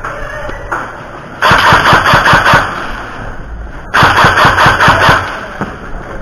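Airsoft gun firing two full-auto bursts of rapid, evenly spaced shots, each lasting about a second.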